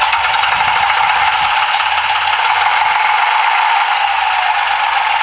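A radio-controlled G-scale Goose model's sound card playing a diesel engine idling through its small onboard speaker: a steady running sound, thin with little bass.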